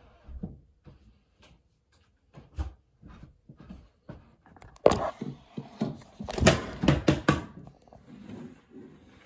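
Scattered knocks and clatter of things being handled, with a sharp knock about five seconds in and a quick flurry of clicks and knocks a second or so later.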